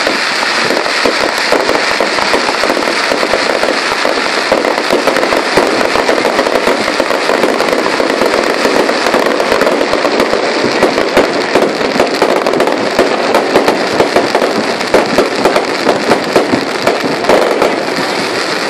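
Fireworks display going off, a dense, continuous crackle of rapid bangs and pops with no pause, with sharper louder bangs standing out from about fifteen seconds in.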